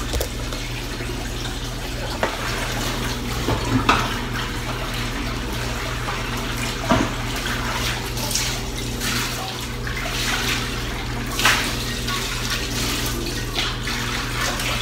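Kitchen tap running into a sink while dishes are washed, with a few sharp clinks of dishware now and then. A steady low hum runs underneath.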